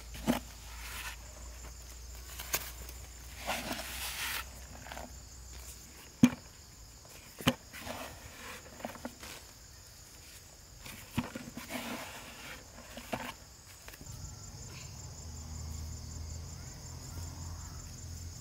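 Gloved hands scooping soil from a plastic bucket and working it into holes in plastic mulch film: rustling, scraping and a few sharp knocks, over a steady high chorus of insects that grows louder near the end.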